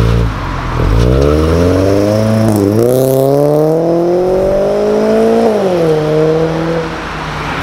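Subaru BRZ 2.0 flat-four with a full aftermarket exhaust system pulling away and accelerating hard. The engine note climbs, drops twice as the automatic gearbox upshifts, then settles and fades a little as the car draws off.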